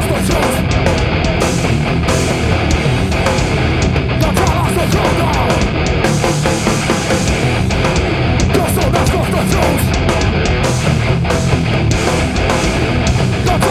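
Heavy, distorted band music played live: electric guitar, bass and drums at full volume, without a break.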